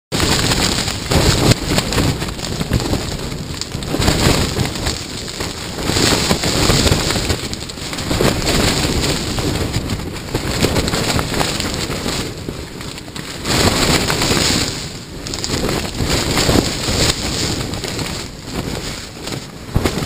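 A strong windstorm buffeting a small camping tent: the tent fabric flaps and snaps rapidly while the wind surges and eases in gusts every few seconds.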